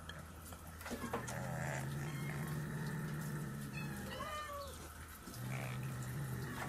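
Domestic cat growling low and long over a fish scrap, breaking off for a short falling meow about four seconds in, then growling again.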